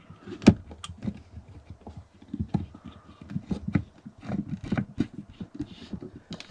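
Wooden cabinet cover panel being handled and fitted into its opening, with its metal hinges and latches worked: a run of irregular light knocks and clicks, the sharpest about half a second in.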